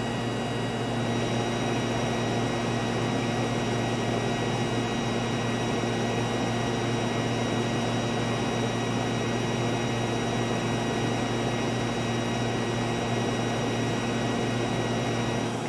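RCA TR-70C two-inch quadruplex videotape recorder running in playback: a steady mechanical hum with several high, steady whining tones from the spinning headwheel and tape transport, mixed with the machine's cooling fans.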